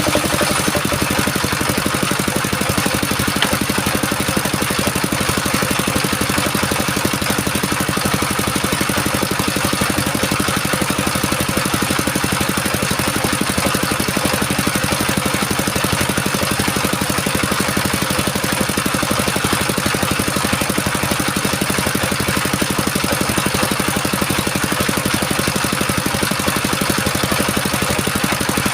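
Engine of a circular sawmill running steadily at a constant speed.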